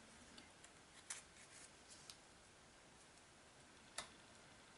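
Near silence, broken by a few faint clicks and light rustles as fingers handle and press small pieces of glossy cardstock into place on a card; the sharpest click comes near the end.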